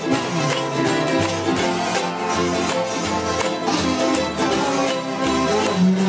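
Live acoustic string band playing a country tune: ukuleles and acoustic guitar strumming along with a banjo, and low bass notes stepping from pitch to pitch underneath.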